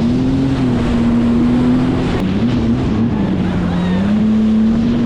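Jet ski engine running under way, its pitch dropping a little about three seconds in and climbing back near the end, over the rush of wind and water.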